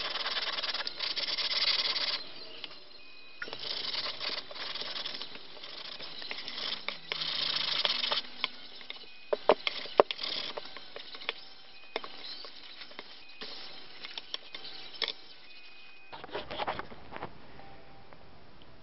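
Anycubic Photon's aluminium build plate scrubbed back and forth on sandpaper to roughen it for resin adhesion. The scratchy, rasping strokes come in uneven bursts, with sharp clicks and knocks between them and a heavier scrape near the end.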